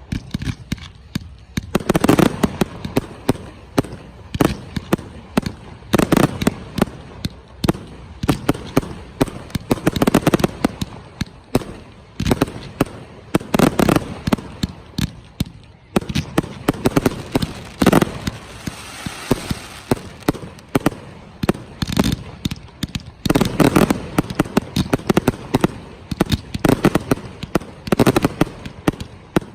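Aerial fireworks bursting in quick volleys of sharp bangs, a fresh cluster every couple of seconds, with crackling between the bangs.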